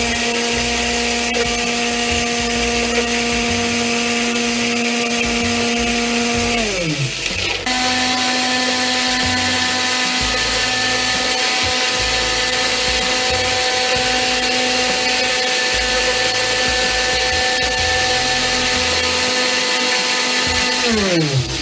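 Homemade mixer grinder's electric motor running at a steady high whine as it grinds a dry material into white powder. It spins down with a falling pitch about seven seconds in, starts again about a second later, and spins down again at the end.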